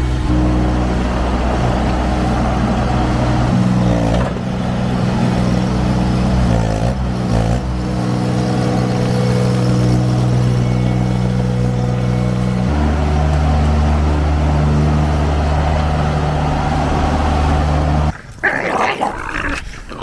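Baumalight mini skid steer's engine running steadily while the machine is driven, its note shifting briefly a few seconds in and changing again a little past the middle. It cuts off near the end, and two French bulldogs are heard growling as they play.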